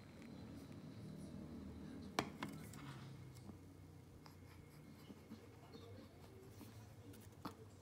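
Beer can set down on a wooden table with a sharp knock about two seconds in, among faint handling and rustling sounds; a second, smaller knock comes near the end.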